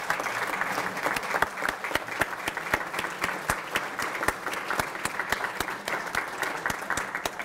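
Seated and standing audience in a large hall applauding steadily: many hands clapping together, with sharper individual claps standing out.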